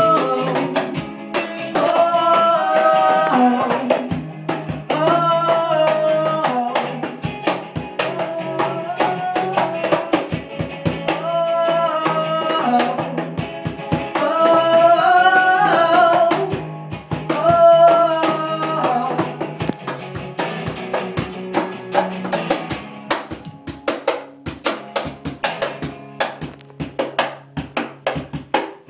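A live song played by a small band: a singer, an electric guitar and a cajon (box drum) keeping a steady beat. The singing stops about 22 seconds in, the cajon and guitar play on, and the song cuts off right at the end.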